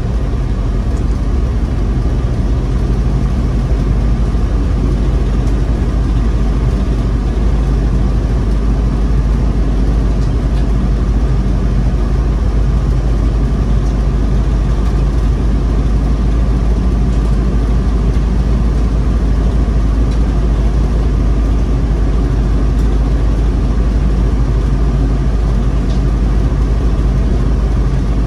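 Steady engine and road noise of a car heard from inside the cabin while driving on a snow-covered road.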